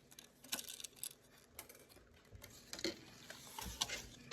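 Faint scattered clicks and light rustling of small plastic packaging and parts being handled, with a few sharper clicks near the end.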